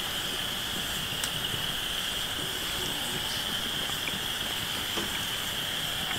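Steady, high-pitched chorus of night insects, with a few faint clicks.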